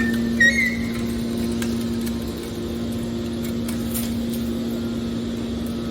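Hydraulic scrap-metal baler running: a steady, even hum from its motor and hydraulic pump, with a brief high squeak about half a second in.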